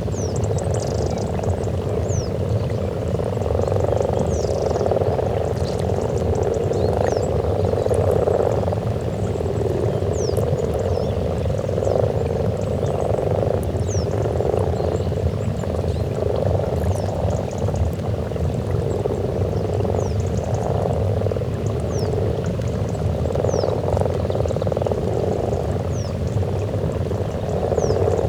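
Breeding chorus of many common frogs croaking together at a spawning pond: a dense, continuous purring croak that swells and eases every few seconds.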